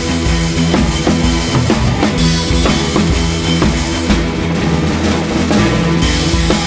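Background music with a steady drum-kit beat over sustained bass and chords.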